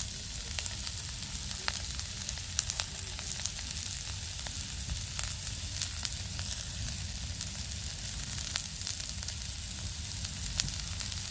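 Food frying in a pan on a portable camping stove: steady sizzling with scattered small pops and crackles, over a low steady rumble.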